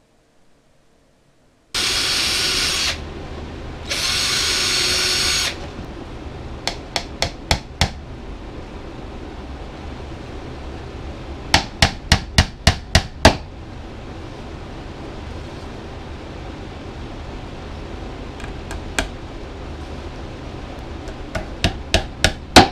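Power tools at work on a wooden case: two loud bursts of a tool running, then a steady low hum with several quick runs of sharp clicks or shots, four or five at a time.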